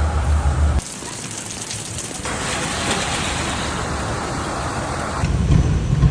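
Rain with wet-road hiss and a low vehicle rumble. The rumble drops away about a second in, a louder rush of rain or water spray builds up in the middle, and the rumble comes back near the end.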